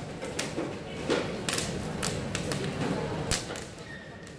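About half a dozen sharp clicks and taps at irregular intervals, over a steady low background rumble.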